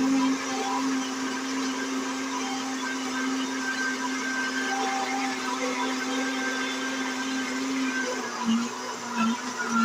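Electric blender running steadily, grinding fresh corn kernels with milk into pamonha batter. The motor hum wavers slightly near the end.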